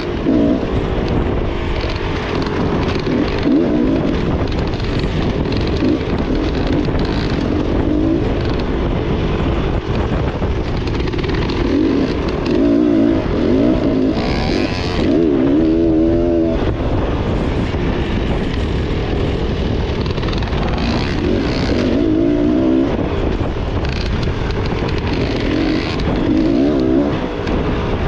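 Dirt bike engine revving up and down as it is ridden on a trail, its pitch rising and falling again and again with the throttle, over a steady rushing noise.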